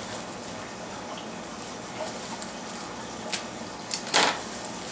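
Plastic wrapping on a ballast's power cord being cut and pulled free with a knife: a couple of light clicks, then a short rasping swish about four seconds in.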